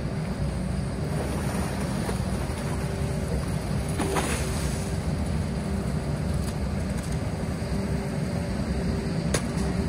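Cat long-reach excavator running steadily while digging: a low rumble with a faint steady tone over it. Two short knocks, about four and nine seconds in.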